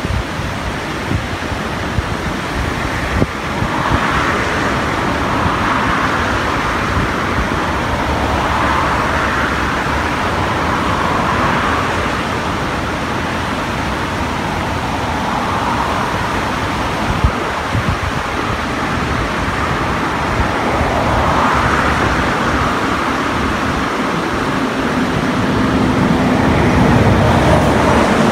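Steady rushing noise of a rain-swollen, muddy river, with slow swells every few seconds. A low, steady hum joins about three-quarters of the way through and grows louder near the end.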